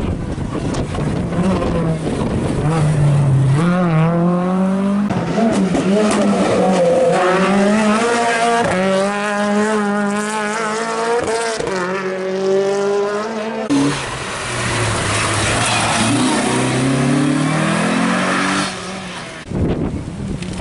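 Rally-prepared Renault Clio racing engines running hard, the note climbing under acceleration and dropping sharply at gear changes, several times over. Race cars pass one after another.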